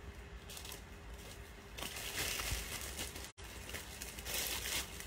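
Cloth rustling as a pair of wide-leg trousers is shaken out and stepped into, getting louder about two seconds in. The sound cuts out completely for a split second a little after three seconds.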